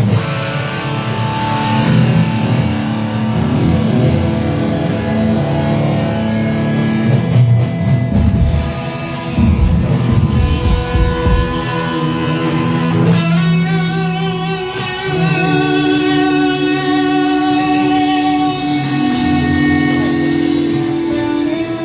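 Live rock band playing an amplified instrumental passage, electric guitar over low bass notes. About halfway through, the playing turns to long held notes with vibrato.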